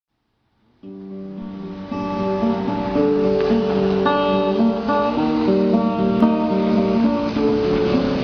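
Acoustic guitar playing an introduction, starting about a second in with picked and strummed chords.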